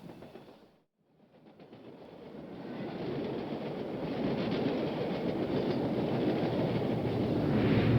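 A train running on rails, rumbling, after a brief gap about a second in; it grows louder over the next couple of seconds and then holds steady.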